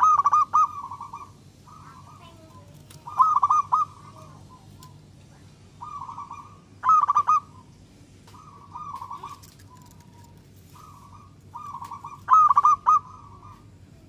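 Zebra dove (perkutut) cooing: four loud staccato phrases of rolling notes, each under a second long, a few seconds apart, with softer phrases of the same song between them.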